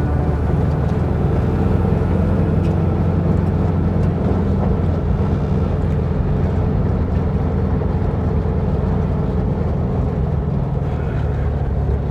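1958 Volkswagen Bus's air-cooled flat-four engine running steadily as the bus drives along a dirt trail.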